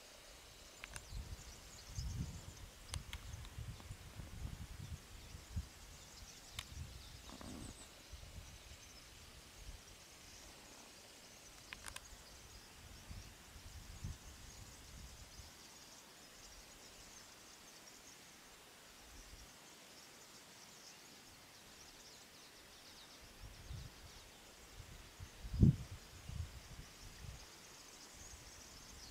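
Quiet outdoor ambience: low rumbling in the first half, a faint high hiss and a few thin clicks, with one short, louder thump near the end.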